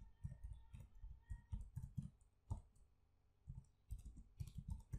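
Faint computer keyboard typing: irregular keystroke clicks, pausing for about a second midway.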